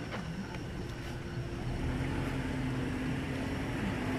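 A car's engine running steadily as it moves along the street, a low hum slowly growing louder.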